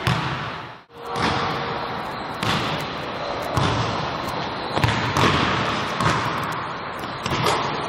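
Basketballs bouncing on a hardwood gym floor: repeated sharp thuds that echo in the large hall, with the sound cutting out briefly about a second in.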